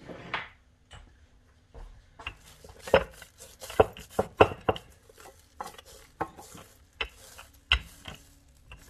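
Wooden rolling pin flattening seitan dough on a wooden board, with irregular clacks and knocks of the pin on the board, several a second, starting about two seconds in.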